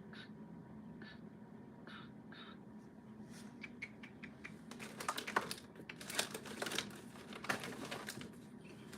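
A quick run of small, sharp clicks and clacks, sparse at first and densest from about five seconds in, over a faint steady hum.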